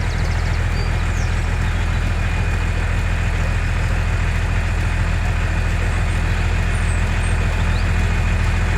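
Engine running steadily at an even speed: a deep, unchanging hum with a faint high whine over it.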